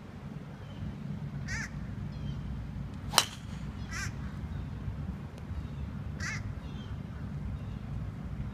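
A golf driver striking a ball off the tee: one sharp crack about three seconds in, the loudest sound. A bird calls three times around it over a steady low background rumble.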